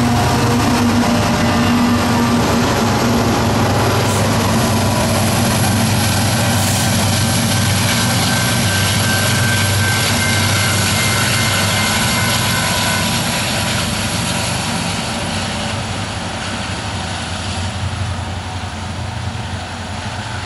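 BNSF diesel-electric locomotives working as distributed power at the rear of a coal train, their engines running as they pass close and then move away, with steel wheels rumbling on the rails. The sound slowly fades over the second half.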